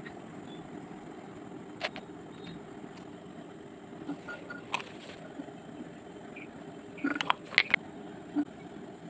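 Glass bottle and paint tool being handled on a wooden table: a few small clicks and taps, with a quick cluster of louder ones about seven seconds in, over a steady low background hum.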